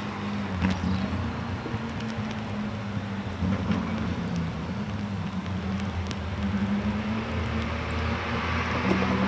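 Engines of several classic Mini race cars running at race speed in the distance, a steady drone that grows louder near the end as the pack comes closer.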